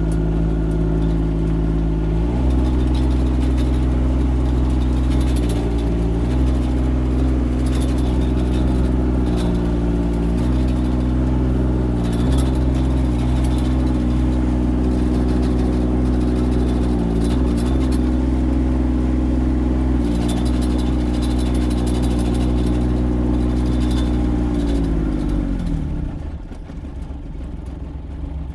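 Diesel engine of a Kymron XH20d mini excavator running steadily while it pushes snow. Its revs step up about two seconds in and sag briefly a few times under load. Near the end the engine winds down to a lower, quieter speed.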